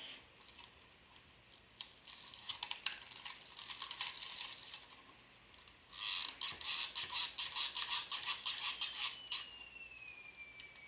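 A quick run of scratchy clicks, then louder rapid rubbing strokes at about five a second for a few seconds, followed near the end by a faint falling whistle.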